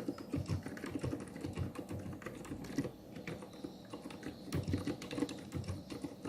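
Fast, continuous typing on a MECA 6 Plus mechanical keyboard in its stock plastic case: a dense run of quick keystrokes, mostly low in pitch.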